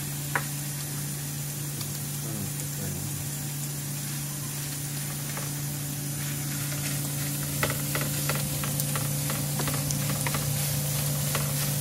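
Meat and onions sizzling as they fry, a steady hiss over a steady low hum. One sharp tap comes near the start, and from about eight seconds in there is a run of clicks and taps from utensils working the food.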